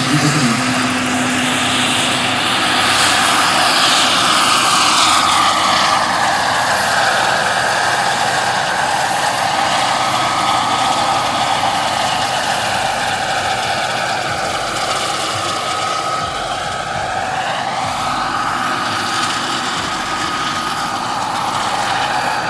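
Large-scale model Bell AH-1 Cobra helicopter with a Jakadofsky Pro XL turbine running and flying: a steady high turbine whine over the rotor's noise. The whine glides down in pitch a few seconds in, then dips and rises again about two-thirds of the way through.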